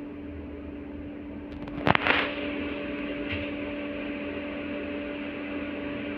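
Inside an LVS-86 tram: a steady electrical hum from the tram's equipment, broken about two seconds in by a short, sharp metallic clatter. After the clatter a higher hum tone joins and carries on steadily.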